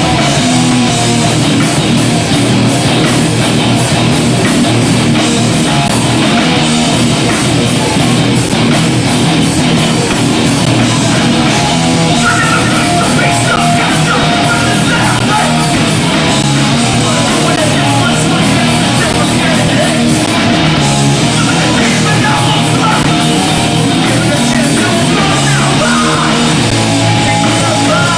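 Hardcore punk band playing live: loud, dense distorted guitars, bass and drums without a break. The camcorder recording is thin in the deep bass.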